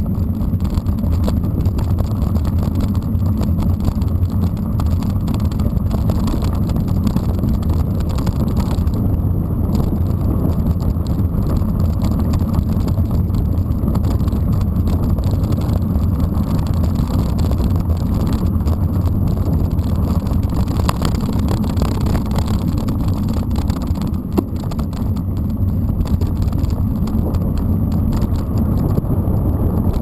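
Steady low rumble of a mountain bike's tyres rolling over a gravel dirt road, with wind and vibration on the camera's microphone.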